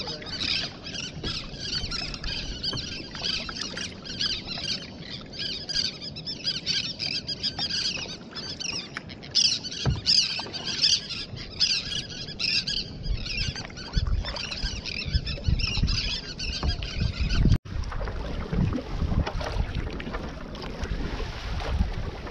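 Water splashing and fizzing along a sit-on-top kayak's hull as it sails downwind across a bay. About three-quarters of the way through, the sound cuts to rougher, choppier water with a heavier low rumble of wind on the microphone.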